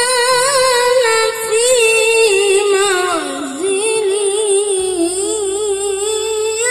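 A woman singing an Islamic devotional song (sholawat) in a wavering, ornamented melody that does not break off.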